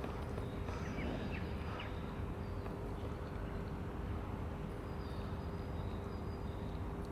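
Steady outdoor background noise with a faint constant hum, and a few faint, short bird chirps, mostly about one to two seconds in.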